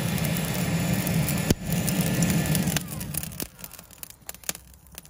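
Electric hot-air charcoal lighter blowing into lump charcoal: a steady fan hum with rushing air, winding down and stopping about three and a half seconds in. After that, a few sharp crackles and pops from the catching charcoal.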